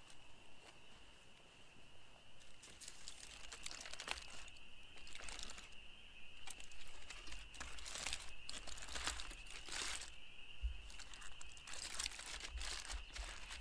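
Aluminium foil packet of cooked food being unwrapped by hand: irregular crinkling and crackling of the foil, starting a couple of seconds in. A steady high tone runs underneath.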